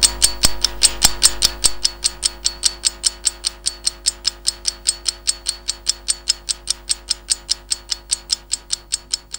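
Clock ticking quickly and evenly, about five ticks a second, growing slightly fainter, over a faint steady drone.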